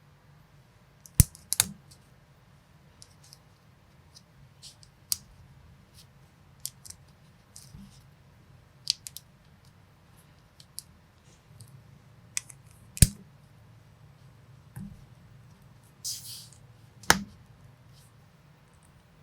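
Small plastic building-brick minifigure pieces being handled and pressed together: scattered light clicks and taps, with a few sharper snaps about a second in, about two-thirds through and near the end, and a brief rustle just before the last snap.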